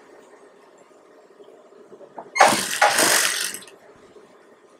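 Blouse fabric rustling loudly for just over a second as it is handled and laid onto the sewing machine table, just after a faint click.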